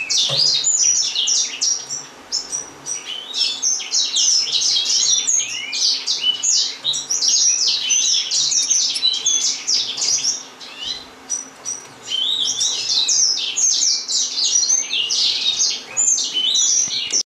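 Gouldian finches chirping: many short, high calls overlapping in quick succession, with two brief lulls, about 2 seconds in and again around 11 seconds.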